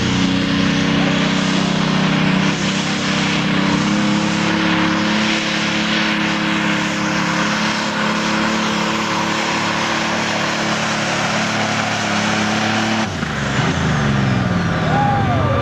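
Pulling tractor's turbocharged diesel engine running at full throttle under load, hauling the weight-transfer sled, the note steady. About thirteen seconds in the throttle comes off at the end of the pull and the engine winds down, its pitch falling.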